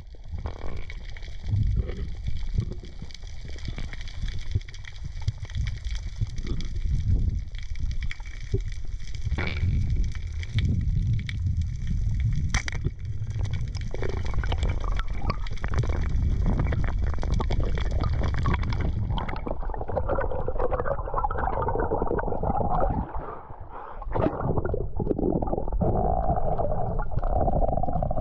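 Underwater sound heard by a camera during a breath-hold dive: a constant low, muffled water rumble with gurgling, and a steady high hiss that stops about two-thirds through. A few sharp clicks stand out, the clearest near the middle.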